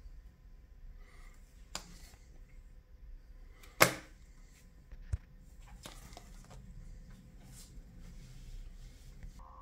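A comic book in a plastic bag with a backing board being handled and lifted, giving a few sharp clicks and taps, the loudest about four seconds in.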